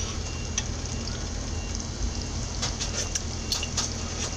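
A pot of chicken adobo simmering with a steady bubbling hiss, and a few light clinks of a metal ladle against the pot.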